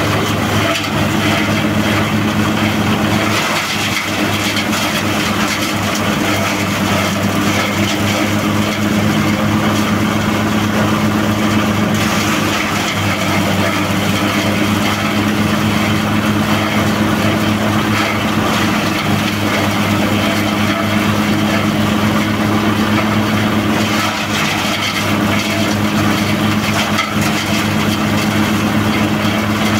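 Single-cylinder diesel engine running steadily, driving a compost shredder's rotor as it chops green plant material.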